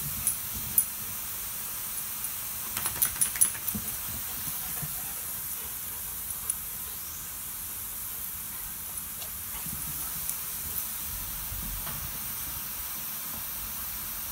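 Garden sprinklers spraying with a steady hiss. A quick run of sharp clicks comes about three seconds in.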